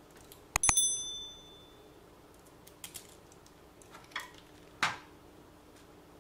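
A small metal part or tool clinking onto a hard surface with a short bright metallic ring, followed by a few faint clicks and taps.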